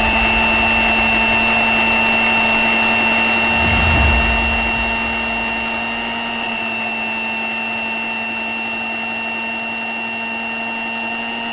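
Electric mixer grinder running at full speed with a loud, steady high whine, its steel jar held shut by hand.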